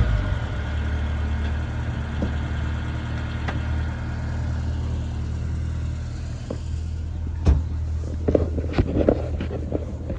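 Car engine idling steadily, a low even hum. Past the middle come a few sharp knocks and some clatter.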